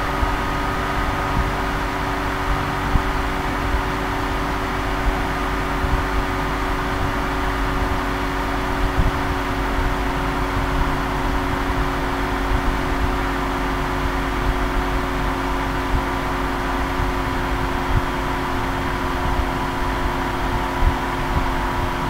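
Steady mechanical hum and hiss with a few constant pitches, unchanging throughout.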